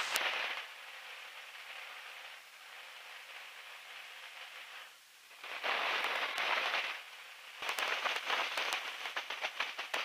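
Aircraft radio static in the headset audio: a faint, even hiss that cuts in and out, with a louder burst of static about five and a half seconds in lasting a second and a half, then crackling static to the end.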